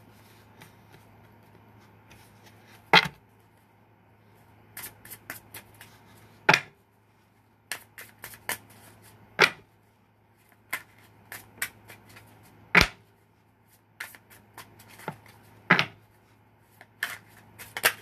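Tarot cards being shuffled by hand: a run of soft clicks and rustles of cards, with a sharper snap of the deck about every three seconds.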